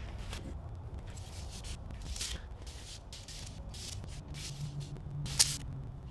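Hands handling an LED shop-light fixture against a ceiling, making short irregular rustling and scraping noises, with one sharp click about five seconds in as it is pressed into place.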